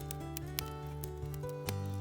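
Background music of held, slowly changing chords over a steady bass, with scattered sharp clicks.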